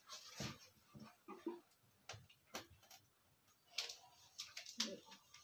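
Marker pen writing on a whiteboard: a faint, irregular run of short scratchy strokes and taps.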